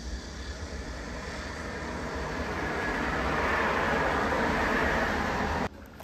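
Aircraft passing overhead: a rushing noise over a low rumble that grows steadily louder for several seconds, then cuts off abruptly near the end.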